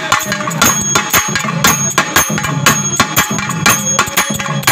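Live percussion ensemble playing a fast, steady rhythm of sharp drum strikes, with ringing metallic bell or cymbal tones over it.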